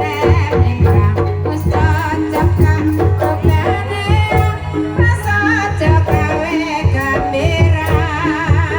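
Banyumasan ebeg accompaniment music: hand-drum strokes over held pitched percussion notes and a low drone, with a singer's wavering vocal line.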